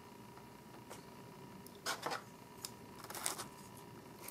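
Short handling noises of takeout food and utensils at a styrofoam box: a brief scrape or rustle about two seconds in, a small click, and another rustle about three seconds in, over a faint steady hum.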